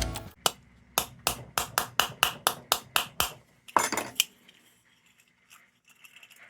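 Metal lantern parts clicking and clinking as they are fitted back together: about ten sharp clicks at roughly three a second, then a brief rattle about four seconds in.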